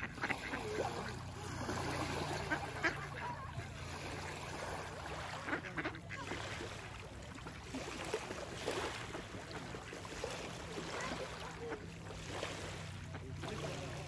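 Mallard ducks quacking now and then over small waves washing onto a pebble shore, which swell and fade every second or two, with a low steady hum underneath.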